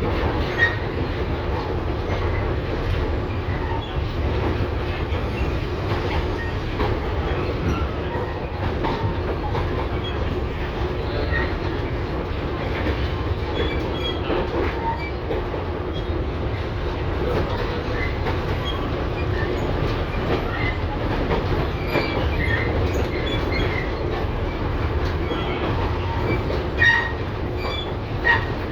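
LVS-2009 tram running along the track: a steady low rumble of wheels on rails with a faint hum and scattered small clicks, then two sharper knocks near the end.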